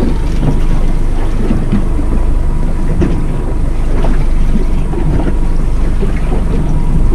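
Loud, steady wind buffeting the microphone on a boat at sea, a low rumbling noise with the sea around it.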